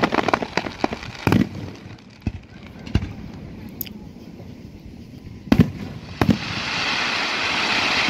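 Aerial firework shells bursting overhead: a quick run of crackling pops at the start, then four separate booms spread a second or more apart. From about six and a half seconds in, a steady hissing wash of sound builds and holds.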